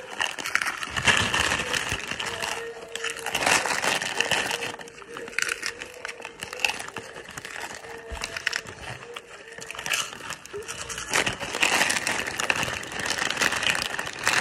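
Plastic snack bag crinkling as it is handled and snacks are taken from it, with crunching of the crisp bites being eaten. It comes in bursts, loudest about a second in, around three and a half seconds and again near the end.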